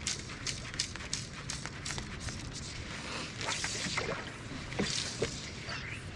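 Fly line being hand-stripped in on a saltwater fly rod: a run of light clicks, then soft swishes of line being pulled through the guides about halfway through and again a second later.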